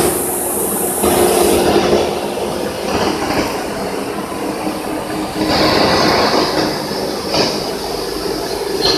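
Copper wire recycling line running: the belt conveyor and granulator machinery give a loud, steady mechanical rumble and clatter over a constant hum, with a brighter hiss joining about halfway.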